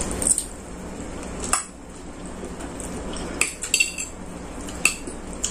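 Metal fork clinking and scraping against a ceramic plate of noodles, with about six sharp clinks spread through the few seconds.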